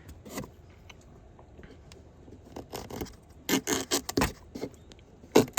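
Handling noise: quiet at first, then a run of short clattering clicks and scrapes in the second half, the loudest near the end.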